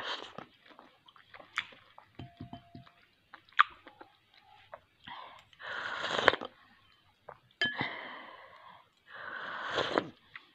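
A person eating soup: scattered chewing and mouth clicks, then three slurps of hot fish-and-moringa broth from a spoon in the second half, about a second and a half apart.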